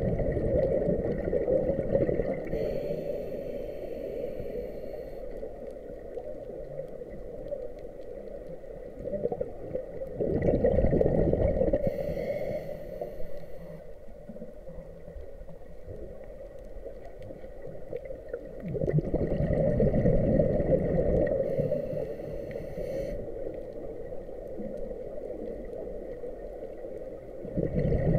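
Scuba diver breathing through a regulator, heard underwater: a gurgling rush of exhaled bubbles about every nine seconds, four times, each followed by a thinner hiss, with a steady low wash of water in between.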